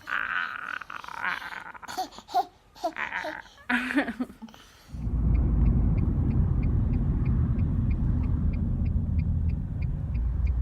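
A small child babbling and laughing. About halfway through, a steady low rumble takes over, with a light regular ticking about four times a second.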